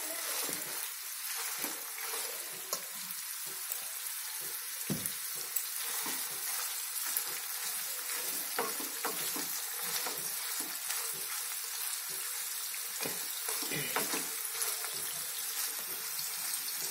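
Paneer cubes sizzling as they shallow-fry in oil in a nonstick frying pan, with frequent light taps and scrapes of a silicone spatula turning them.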